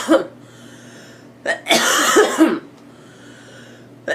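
A girl coughing in repeated fits, one fit about every two and a half seconds. Each fit is a short catch followed by about a second of harsh coughs. A fit ends just after the start, a full one comes in the middle, and the next begins at the very end.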